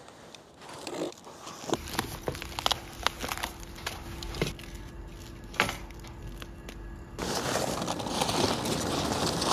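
Packaging being handled during unboxing: newspaper and plastic wrapping crinkling and rustling, with scattered sharp clicks and crackles as tape is cut and the cardboard box opened. The rustling gets louder and continuous for the last couple of seconds, when the newspaper-wrapped seedling is lifted out.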